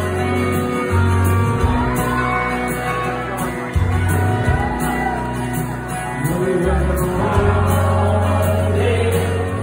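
Live band music through a concert hall's PA, recorded from the audience: an acoustic guitar with deep, held bass notes underneath. About six seconds in, voices come in over the music.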